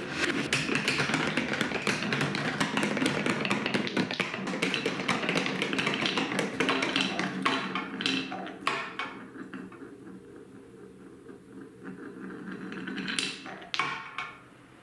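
Marbles rolling and rattling along a plastic wave-slope marble run and wooden track, then clicking as they drop through a funnel and chute into a bowl of water, with a few sharp clicks again near the end.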